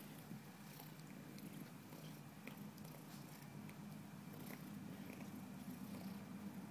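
Domestic cat purring steadily while being petted, with a few light clicks of fur and hands.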